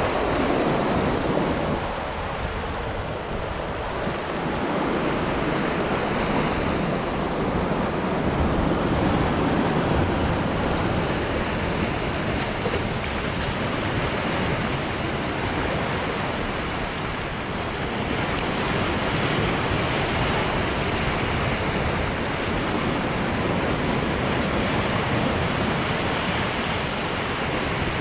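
Sea surf breaking and washing over rocks: a steady rush of white water that swells and eases every several seconds.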